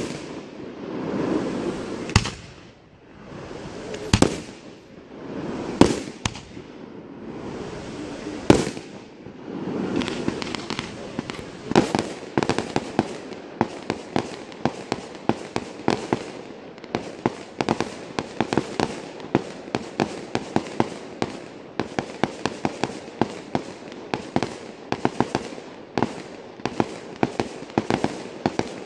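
Fireworks display: separate shell bursts every couple of seconds, with a swelling rush of noise between them, then from about twelve seconds in a rapid barrage of sharp reports, several a second.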